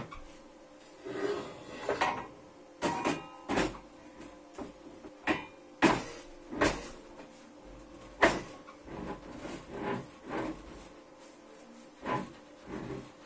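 Steel parts being handled and set down on a workbench: about a dozen irregular clanks and knocks, a few with a short metallic ring.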